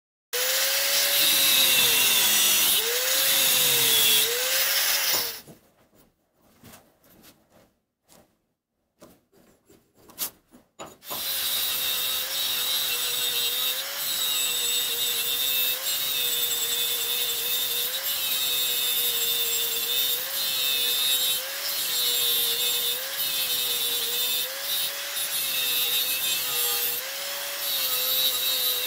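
Angle grinder with a thin cut-off disc cutting 52100 steel held in a vise. The motor's whine dips and recovers as the disc bites. It stops about five seconds in, leaving a few faint clicks. After a gap of about six seconds it runs again for the rest, its pitch dipping about every second and a half as a row of small notches is cut into the edge.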